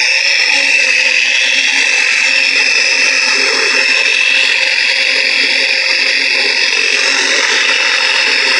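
Flex XFE 7-12 mini random-orbital polisher running steadily at speed. Its foam polishing pad is buffing swirl marks out of a painted 3D-printed helmet.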